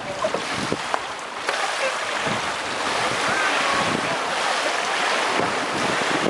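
Steady rushing noise of kayak paddles splashing through pool water, mixed with wind on the microphone, growing louder about a second and a half in.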